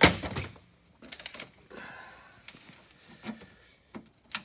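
Duct-taped metal mounting bars set down on a Polaris snowmobile's tunnel and worked into place over the bolt holes. There is a loud clunk at the start, then a scatter of short knocks and clicks with a brief rustle as they are shifted and seated.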